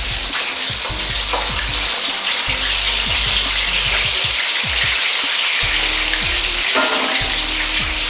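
Diced potatoes frying in hot oil in a wok: a loud, steady sizzle.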